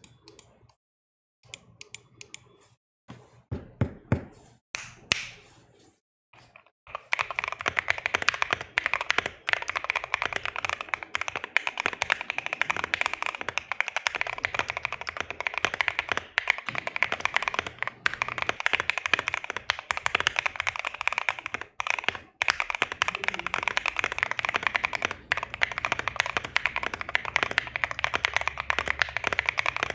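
Typing on a custom Bakeneko60 60% keyboard with a POM plate and lubed linear switches. A few separate key clacks come first, then fast continuous typing starts about seven seconds in.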